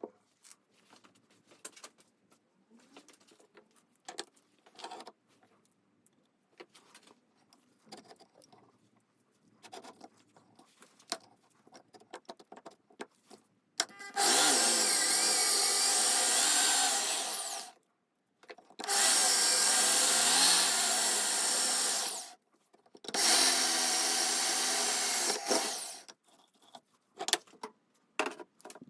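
Light clicks and taps of parts and tools being handled, then an electric tool motor runs three times, each run about three to four seconds, its pitch sagging and recovering during the middle run as if under load.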